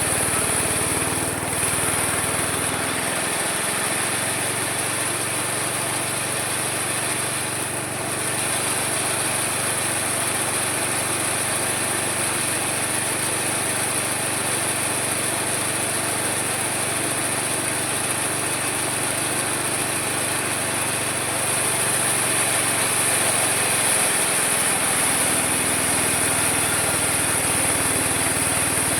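Homemade mini sawmill running steadily with a high whine; its low hum drops lower from about three seconds in and comes back up about 24 seconds in.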